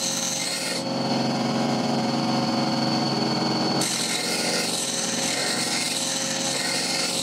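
Bench grinder running with a half-round steel carving gouge pressed against its stone wheel, a harsh grinding hiss over the motor's steady hum as the bevel is ground toward a burr. About a second in the grinding hiss drops away for some three seconds, leaving the motor's hum and whine, then returns as the gouge meets the wheel again.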